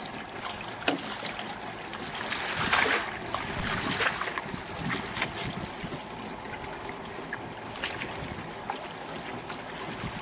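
Water washing and lapping against shoreline rocks, with wind; a louder wash swells up about two to four seconds in, and a few small knocks from handling come through.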